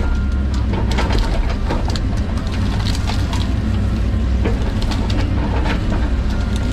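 John Deere 130G excavator's diesel engine running steadily under load, with frequent sharp cracks and clatter while it grubs out brush and trees.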